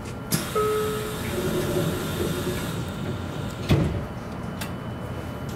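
Passenger doors of a JR Kyushu 813 series train closing at a station: a sudden hiss at the start with a brief tone, then a single loud thump about three and a half seconds in as the doors shut.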